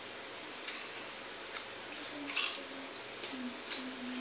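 Hands working wet pakhala (water-soaked rice) in steel bowls, with chewing and slurping: a string of short wet smacks and clicks, the loudest about halfway through, over a steady background hiss.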